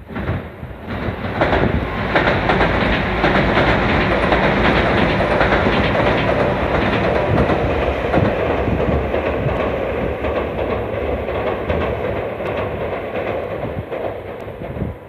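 A JR Nara Line train passing close by. Its running noise builds over the first two seconds, stays steady and loud, and eases near the end.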